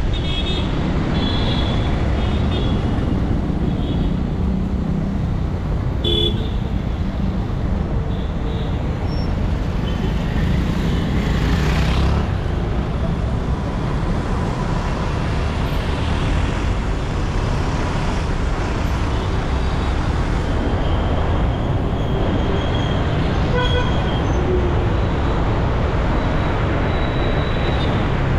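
Road traffic: a steady low rumble of engines and tyres, with short vehicle-horn toots at several points, near the start, around six seconds in and near the end.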